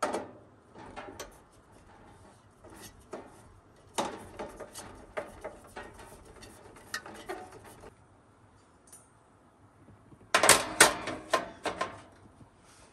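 Hard objects clinking and knocking as they are handled: irregular runs of short clicks and clatters in several bursts, the loudest near the end.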